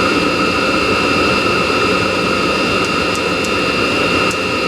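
Chinese diesel heater running: a steady rush of the combustion blower and burner with a constant high whine. A few faint sharp ticks come in from about three seconds in.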